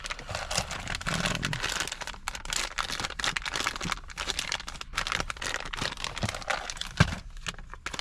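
Plastic packaging crinkling and rustling as small accessory cables are unwrapped and handled, with scattered clicks and one sharp knock about seven seconds in.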